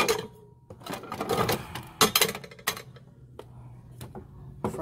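Secondhand items being handled and shifted about in a thrift-store bin: a scatter of light knocks and clatters, grouped about a second and two seconds in, with a louder knock near the end.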